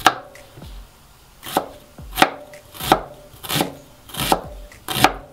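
Cleaver-style kitchen knife chopping an onion on a cutting board: seven sharp knock-and-crunch strokes, a pause after the first, then a steady stroke about every two-thirds of a second.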